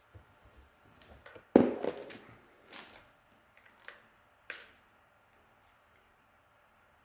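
Handling noises from plastic packaging and small items: a few sharp clicks and crinkles, the loudest about one and a half seconds in.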